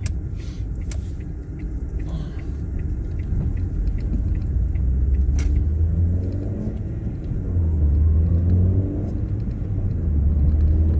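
Ford Fiesta Mk7 on the move, heard from inside the cabin: a steady low engine and road rumble that swells and eases every second or two.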